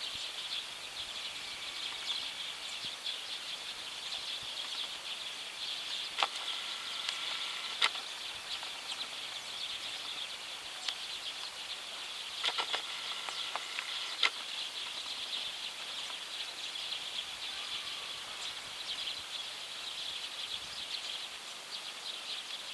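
A flock of Eurasian tree sparrows chattering all together: a dense, unbroken wash of many overlapping high chirps, the evening chorus of a flock gathered in a tree. A few louder, sharper chirps from nearer birds stand out about six, eight, and twelve to fourteen seconds in.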